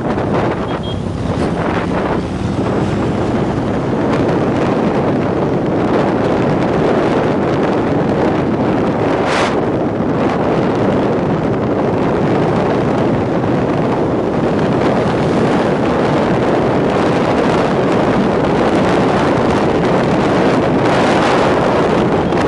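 Steady wind rush on the microphone of a moving motorcycle, with engine and road noise underneath. A brief hiss about nine seconds in.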